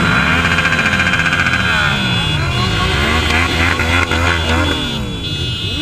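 Many motorcycle engines revving up and down together in a dense pack, their pitches rising and falling and overlapping, over the steady low running of a nearby bike's engine, which drops away near the end.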